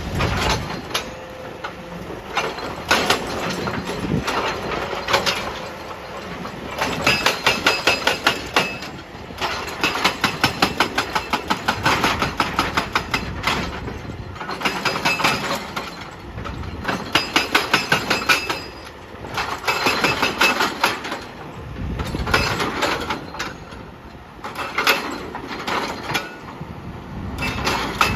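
Excavator-mounted hydraulic breaker hammering rock in bursts of rapid, evenly spaced blows, each burst lasting a second or two with short pauses between, over the excavator's running engine.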